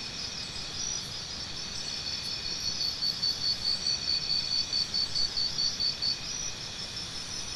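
Insects chirping: several steady high trills, joined from about two and a half seconds in by a louder chirp repeating about four times a second that stops about six seconds in.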